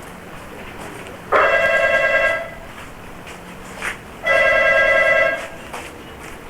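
Telephone ringing: two rings, each about a second long, about three seconds apart, a warbling tone with a strong buzzy band and many overtones.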